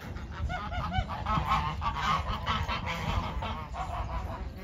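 Several domestic geese honking, their calls overlapping in a quick repeated chorus that starts about half a second in.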